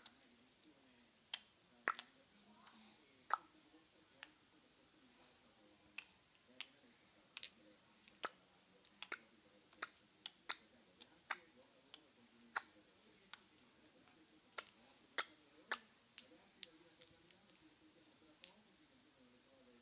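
Plastic beads on a baby's rattle toy clacking as the baby shakes and waves it: irregular sharp clicks, roughly one every half second to a second.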